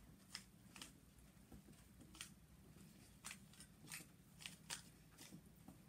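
Faint, sharp plastic clicks of a 3x3 Rubik's Cube's layers being turned by hand, several separate turns spread unevenly.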